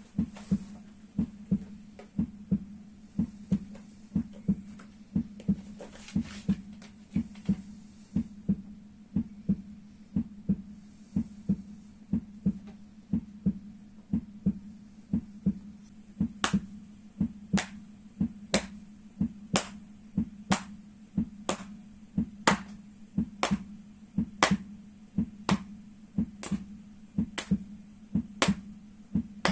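Soles of the feet being struck in a steady heartbeat-like rhythm: dull knocks about two a second, joined about halfway through by sharper slaps about once a second.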